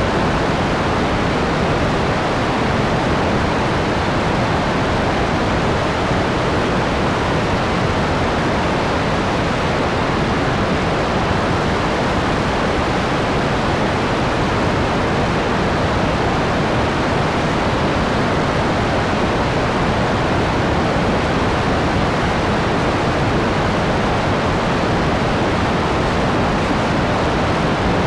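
Steady, loud rush of wind over an action camera's microphone in flight, an even hiss with no break or change.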